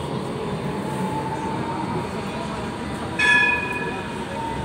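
Adelaide Metro tram drawing near the platform: a steady rumble with a faint high whine. About three seconds in comes a short, loud ringing tone of several pitches.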